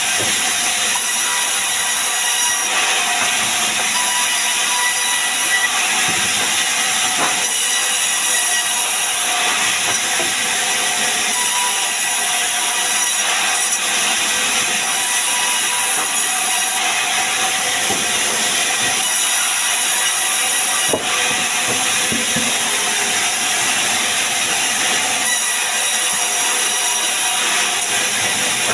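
Sawmill band saw ripping sengon (albizia) logs into beams: a loud, steady, hissing whine of the running blade cutting through the wood. A couple of brief knocks come from the timber on the saw table.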